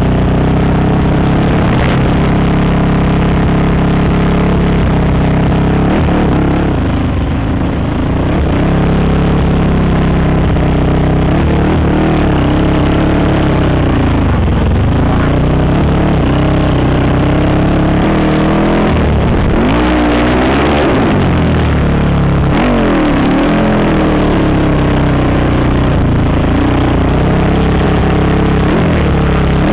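Honda TRX450R quad's single-cylinder four-stroke engine running hard under throttle, its pitch swelling and dropping several times as the rider goes on and off the gas.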